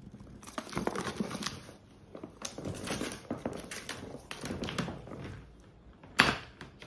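Cardboard box rustling and scraping as a hand rummages inside it, a series of irregular crinkles and small clicks, with one sharp knock about six seconds in.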